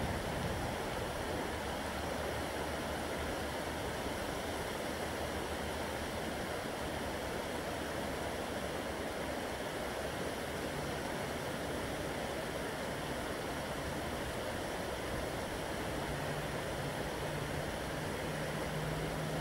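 Shallow river water rushing steadily over a stony bed. A faint low hum joins in during the second half.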